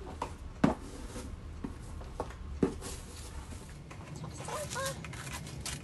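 Small cardboard gift box being handled and opened by hand: a few sharp taps and knocks, the two loudest in the first three seconds.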